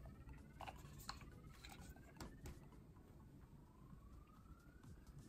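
Near silence: room tone with a few faint soft ticks and faint rising tones.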